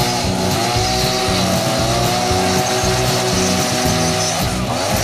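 Motor of a truck-mounted hive crane running steadily with a steady whine, its pitch sagging briefly twice, near the start and near the end.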